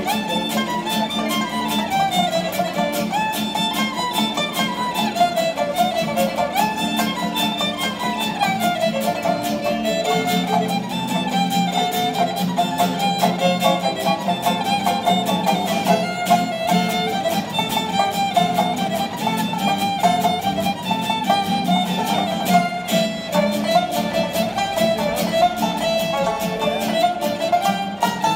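A fiddle, five-string banjo and acoustic guitar playing a Ukrainian kolomyika dance tune live, the fiddle carrying the melody over plucked banjo and strummed guitar in a steady, quick rhythm.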